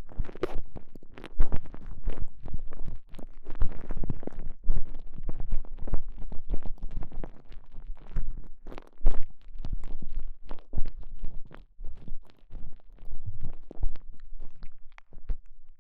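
A TENGA Egg's stretchy elastomer sleeve with a microphone inside it being squeezed and rubbed: muffled, irregular squishing and rubbing with a deep, rumbling undertone.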